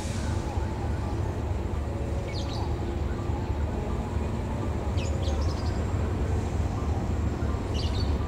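Diesel-electric locomotive approaching slowly, its engine making a steady low rumble that grows a little louder towards the end. Short bird chirps come about every three seconds.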